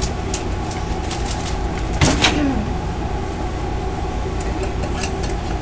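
Steady background hum with one knock about two seconds in and a few faint clicks near the end, as ingredients and containers are handled.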